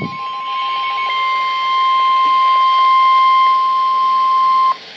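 Emergency alert attention tone: the NOAA Weather Radio 1050 Hz warning alarm, one steady high tone that cuts off suddenly near the end, with a faster pulsed beeping sounding along with it for about the first second. It signals that a weather warning broadcast follows.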